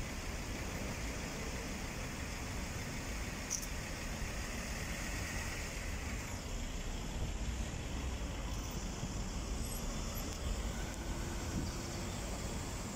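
Steady road-traffic noise, a continuous low rumble of passing cars with no single vehicle standing out.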